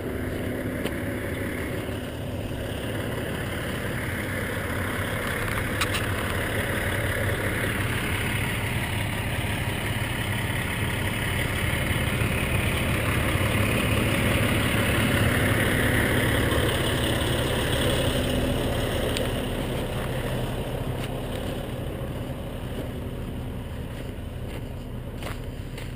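Truck engine running steadily with a low hum, growing louder through the middle and easing off toward the end.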